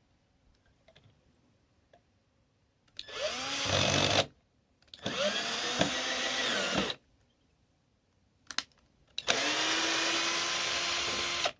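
Power drill running in three bursts of one to two and a half seconds, its motor spinning up at the start of each, with a couple of short clicks before the last burst: screws being worked as the out-of-square centre support brace of a scrap-wood foot rest is redone.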